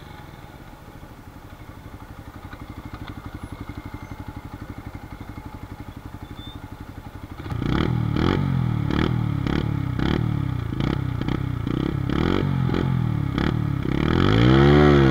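Brixton BX 125 café racer's single-cylinder four-stroke engine on its stock exhaust, idling with a steady pulse. About seven seconds in it becomes much louder, and the stationary bike is blipped in a quick series of throttle revs, about two a second. Near the end comes one longer rev that rises and falls.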